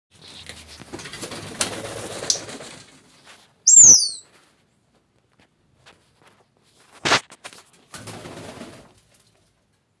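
African grey parrots: a few seconds of wing flapping, then a loud, high whistle that falls sharply in pitch. A sharp click follows, then a second brief flutter of wings.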